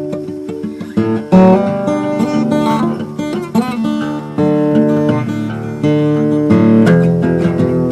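Acoustic guitar playing an instrumental blues passage of plucked single notes and chords, with a few bent notes.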